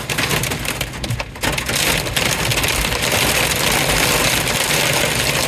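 Heavy wind-driven storm rain pelting a truck, heard from inside the cab as a dense crackle of many small strikes, with a brief lull about a second in. Strong gusts run underneath.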